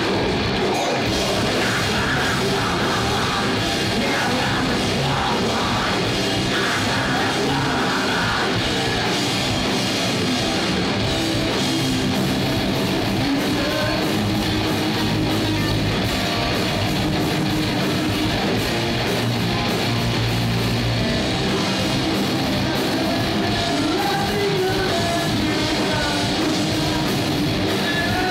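Heavy metal band playing live: distorted electric guitars and a drum kit at a steady, loud level, with yelled vocals over the top.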